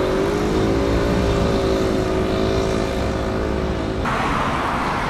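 Airbus A330-300 airliner's jet engines on arrival: a loud, steady drone with several tones that bend slightly, over a low rumble. About four seconds in it cuts abruptly to a hissier jet-engine sound.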